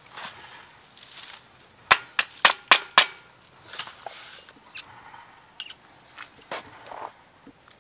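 Tripod and camera head being handled: a quick run of five sharp clicks about two seconds in, then a few scattered clicks and soft rustling.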